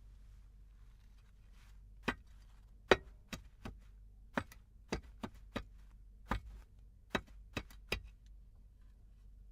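A fawda (Indian digging hoe) striking the ground in digging. There are about a dozen sharp chops at an uneven pace, starting about two seconds in and stopping about eight seconds in; the second strike is the loudest.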